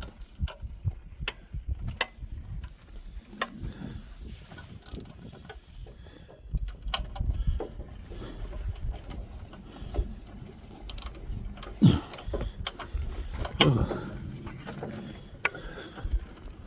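Ratchet wrench clicking in short runs while bolts are turned, with scattered metal knocks of tools and parts. Near the end come two short falling squeaks.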